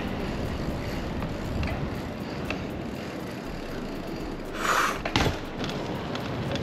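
Wind rushing over the microphone and tyre noise from a bicycle ridden at speed over wet pavement. About four and a half seconds in there is a brief, louder rush, and a sharp knock follows just after it.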